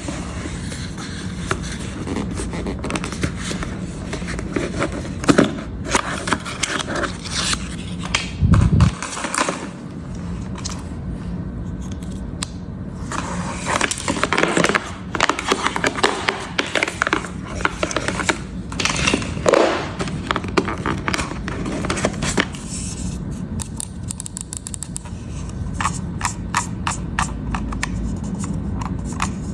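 Laptop packaging handled close to the microphone: cardboard and plastic scraping and crinkling, with scattered clicks and taps and a dull thump about eight seconds in.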